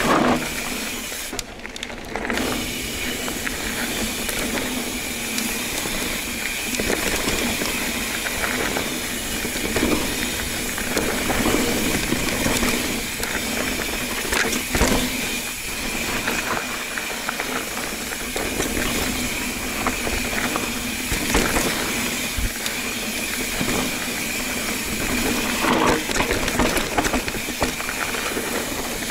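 Ibis Ripley 29er mountain bike on a trail ride: a steady rush of tyre and wind noise with frequent short knocks and rattles from the bike over rough ground, and a thin high tone running through it.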